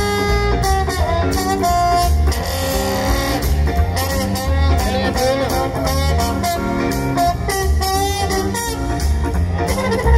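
Instrumental music led by guitar over a steady bass line, with no singing.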